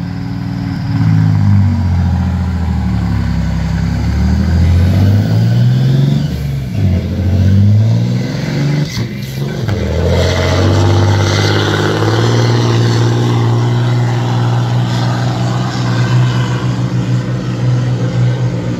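Volvo FH12 truck's 12-litre six-cylinder diesel working at full load on a hill pull with a 20-tonne load. The revs climb and drop back several times through gear changes in the first half, then the engine holds a steady, labouring note.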